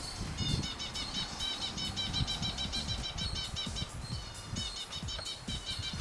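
Ashy prinia calling, a fast, steady series of short repeated high notes, about six a second, with a brief break about four seconds in.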